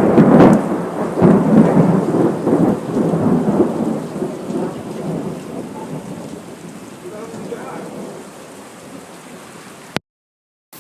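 Thunder cracks loudly at the start and rolls away, fading over about eight seconds, over steady heavy rain. The sound cuts off completely about ten seconds in.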